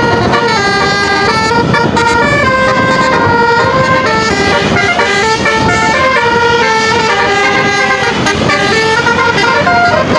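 Basuri 'telolet' musical air horn on an Indonesian tour bus playing a loud tune of short stepped notes without a break, over the rumble of the bus.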